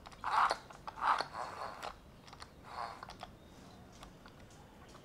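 Small oiled saw chain being worked and rubbed between the hands, with short bursts of rubbing and light clicking of the chain links in the first three seconds, then only faint ticks.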